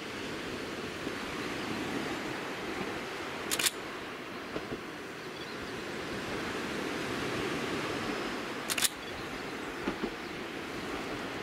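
Steady outdoor background hiss, with two short clusters of sharp clicks, about three and a half seconds in and again about nine seconds in.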